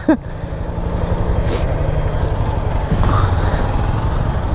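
Yamaha Fazer 250 motorcycle's single-cylinder engine pulling away from a stop, getting louder about half a second in and then running steadily under acceleration.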